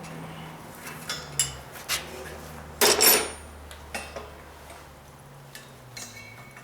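Clinks and knocks of bottle and fittings being handled, with one short, loud hiss about three seconds in, fitting a burst of CO2 gas from a welding carbon-dioxide cylinder being let into or out of the bottle.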